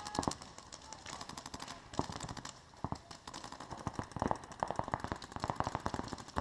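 Paintball markers firing in rapid strings of many shots a second, the strings starting and stopping throughout, some close and loud, others farther off.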